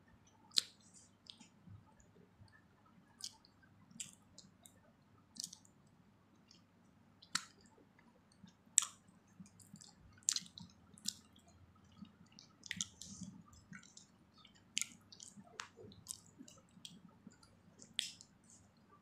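Close-miked chewing: irregular wet mouth clicks and smacks, roughly one every second or so, over a faint steady low hum.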